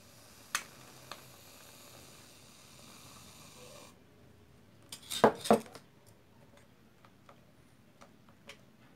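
Aerosol shaving cream hissing steadily out of a can into a small plastic cup for about four seconds, then two loud knocks close together about five seconds in, followed by light clicks of a plastic spoon in the cup.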